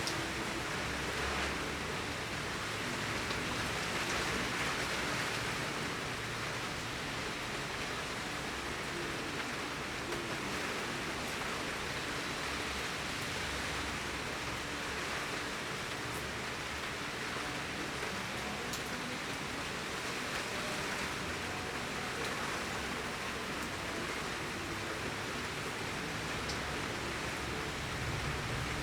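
Torrential rain pouring down steadily, an even hiss of falling water with a few faint drop ticks.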